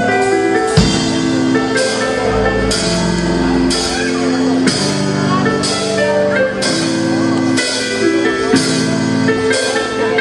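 A rock band playing live: an instrumental passage of held chords over a drum kit with a steady beat.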